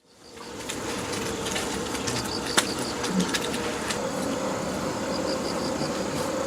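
Steady outdoor background noise with a few sharp clicks and, twice, a quick run of short high chirps.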